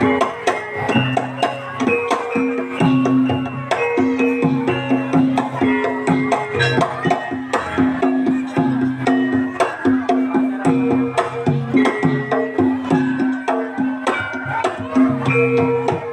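Live Javanese traditional ensemble music for a kuda lumping dance: a run of quick drum strokes over repeating melodic notes that step from pitch to pitch above a steady low note.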